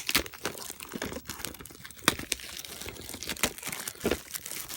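Plastic shrink wrap being torn and peeled off a VHS tape case, crinkling and crackling in quick, irregular bursts.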